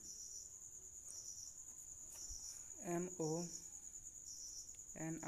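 Crickets trilling steadily in a high-pitched, pulsing chirr.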